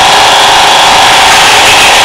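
Battery-powered Trackmaster toy train engine's electric motor and gears whirring steadily as it runs along plastic track, close and loud.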